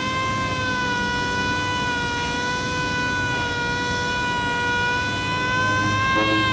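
Orbital sander running while sanding a bumper cover: a steady high whine that wavers slightly in pitch.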